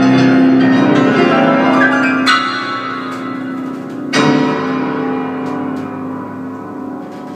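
Grand piano playing held chords that ring on. A new chord is struck about two seconds in, and a louder one about four seconds in rings out and slowly fades.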